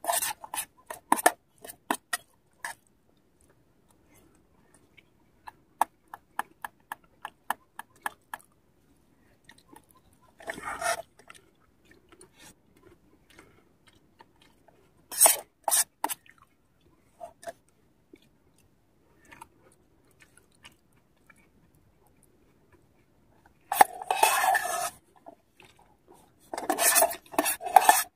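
Metal spoon clinking and scraping against a metal camping pot while eating, with chewing. It comes in runs of quick ticks and in short scrapes, the longest scrapes near the end.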